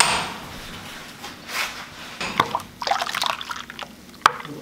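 Mint-coriander paste splashed into a glass bowl of spiced pani puri water and stirred with a steel ladle: sloshing and trickling liquid, with a sharp clink of the ladle near the end.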